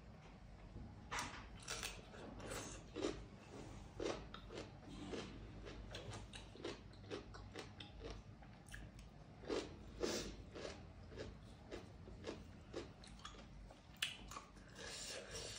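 A person chewing and biting food close to the microphone, with irregular short, sharp crunches.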